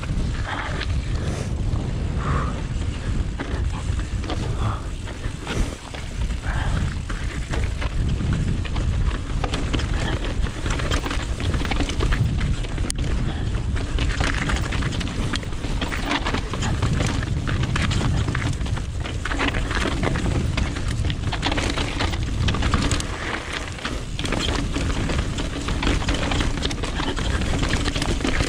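Mountain bike descending over rock slabs and loose stones: continuous tyre roar and wind rush on the chest-mounted camera's microphone, with frequent knocks and rattles from the bike over the rocks.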